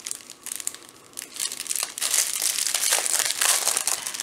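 Clear plastic packaging crinkling as a diamond-art sticker packet and its small bag of rhinestone drills are handled and pulled open. It is faint for about the first two seconds, then louder and busier.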